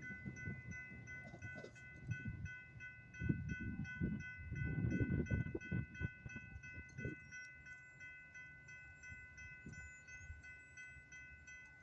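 Railroad grade-crossing warning bell ringing steadily, about three strokes a second, over a low train rumble that fades away.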